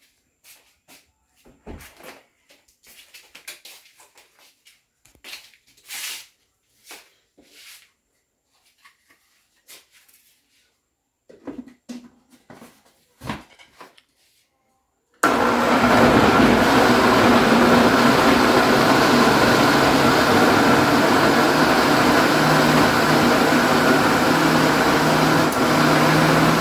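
Kitchen blender beating corn cake batter. For roughly the first fifteen seconds there are only scattered light clicks and knocks, then the blender switches on abruptly and runs loud and steady to the end.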